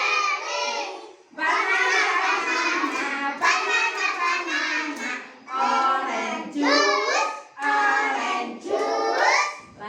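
Young children singing together in high voices, with short breaks between phrases.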